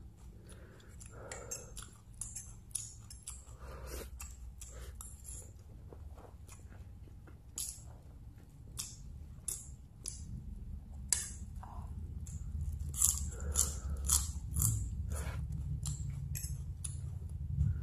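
Close-up eating of noodles: wet chewing and slurping with many quick mouth smacks and clicks. A low steady hum runs underneath and grows louder about ten seconds in.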